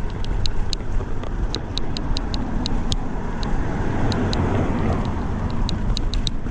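Riding noise of an old bicycle on the camera microphone: a steady rumble and hiss with irregular sharp ticks and rattles from the bike, a few a second, which the rider has traced to the rear rack without finding anything loose. A swell of passing traffic about four seconds in.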